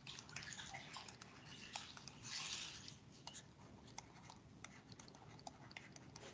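Near silence with faint scattered taps and light scratching of a stylus writing on a tablet, and a brief soft hiss about two and a half seconds in.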